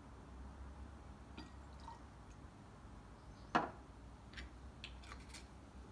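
Elderflower cordial poured faintly from a glass bottle into a shot glass, then one sharp glass clink about three and a half seconds in, followed by a few light clicks.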